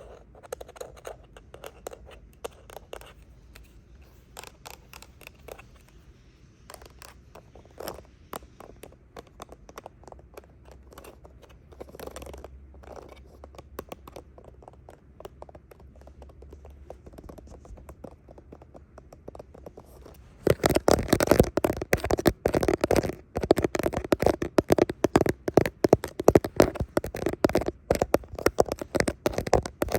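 Close-miked ASMR tapping and scratching on hard handheld objects, with quick clicks and scrapes. It is soft and sparse at first, then becomes much louder and denser about two-thirds of the way in.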